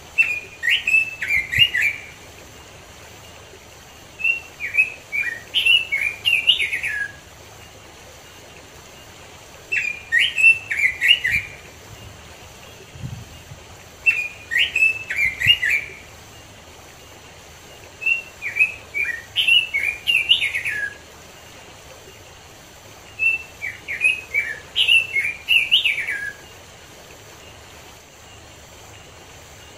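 Red-billed leiothrix (Pekin robin) singing: six warbled song phrases of two to three seconds each, repeated about every four to five seconds. Beneath them runs the steady rush of a small stream.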